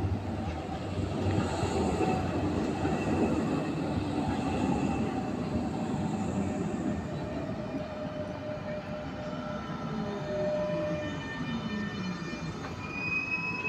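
Electric trams running past on street track close by: a steady rail rumble, then a motor whine falling in pitch as a tram brakes to a stop. A high steady squeal comes in near the end.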